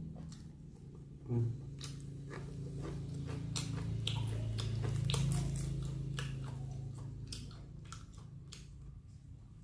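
Close-miked chewing and biting of crispy fried chicken and rice, with repeated small crunches and wet mouth clicks over a low steady hum, and one dull thump about a second in.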